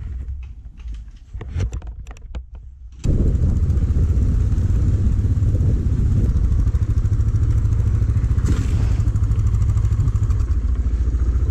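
A few light clicks and knocks. Then, abruptly about three seconds in, a Suzuki DR650's single-cylinder engine runs loud, close and steady at low speed on a rough dirt track, heard from on the bike.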